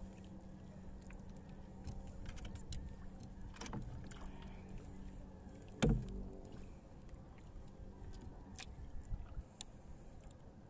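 Small fishing boat at sea: a steady low hum under scattered light clicks and handling knocks, with one loud knock about six seconds in.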